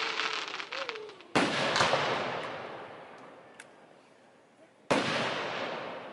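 Aerial firework shells bursting. A fading crackle from a crackling shell comes first, then a loud bang about a second in with a smaller one right after, and another loud bang near the end. Each bang echoes away slowly.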